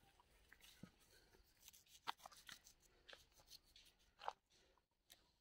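Faint, quick scrapes and clicks of a knife peeling and cutting a raw carrot, with one louder short sound a little after four seconds in.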